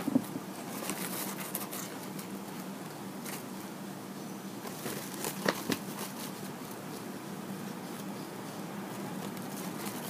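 Hands handling a large metallic brocade ribbon bow and tying thread around its centre: scattered rustles and light clicks, the sharpest about five and a half seconds in, over a faint steady hum.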